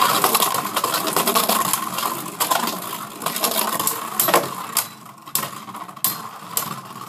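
Two Beyblade Burst Turbo spinning tops whirring on the plastic floor of a battle stadium, a steady whirring hum broken by repeated sharp clacks as they strike each other. The whirr grows fainter as the tops lose speed.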